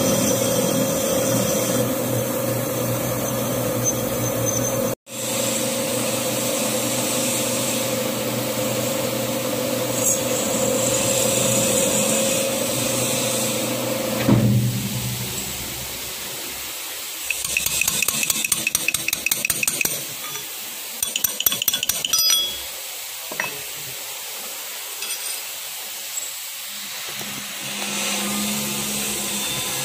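Metal lathe running as a cutting tool turns a motorcycle magneto flywheel housing, a steady machine hum. About halfway through the lathe shuts down, and quick runs of metallic clinking and rattling follow.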